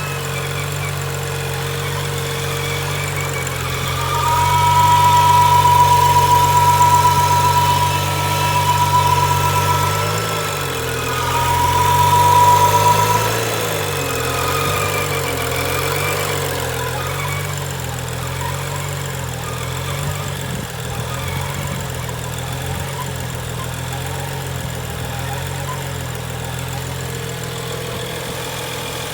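BMW N55 turbocharged straight-six idling rough, its speed wavering up and down, with a high steady whine from near the firewall on the passenger side. The whine is strongest for several seconds around the middle, dropping out briefly once, and fades back under the engine sound after that.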